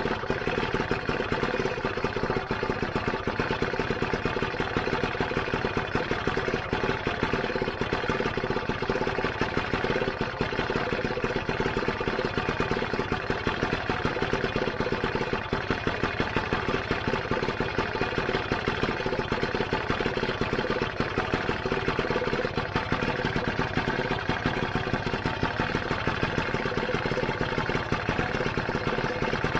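Freshly rebuilt Lambretta GP scooter's single-cylinder two-stroke engine idling steadily.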